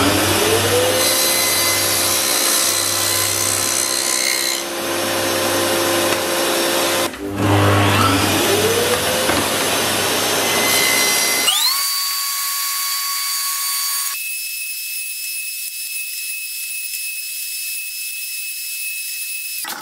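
Festool table saw starting up, its motor whine rising, then running and ripping MDF strips; it starts up again about eight seconds in. From about twelve seconds a steadier high-pitched whine takes over, without the low hum.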